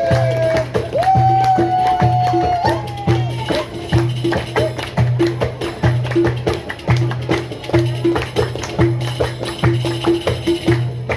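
Middle Eastern-style ensemble music driven by a steady hand-drum beat with tambourine jingles, and held melodic notes over it in the first few seconds.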